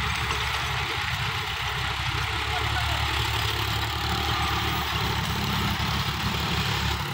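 Diesel engines of Sonalika tractors running steadily while driving rotary tillers, the tines churning the soil.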